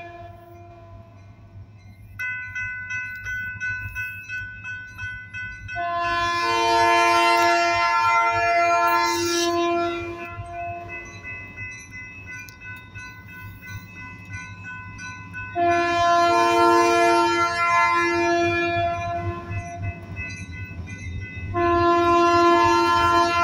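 Diesel locomotive's multi-note air horn sounding long blasts for a grade crossing: about six seconds in, again about sixteen seconds in, and again near the end. Under the horn runs the low rumble of the approaching locomotive. A crossing bell rings steadily from about two seconds in.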